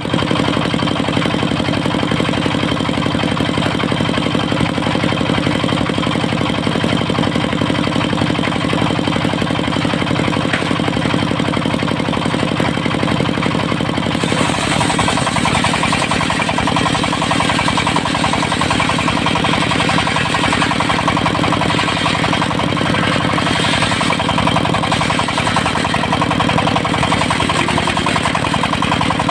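Diesel engine of a mobile circular sawmill running steadily at a constant speed. About halfway through, a brighter hiss joins in and stays to the end.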